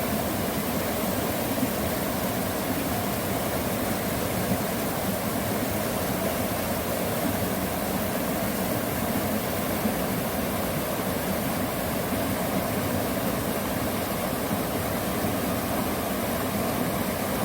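Steady rushing of water in a mountain valley stream: an even, unbroken noise.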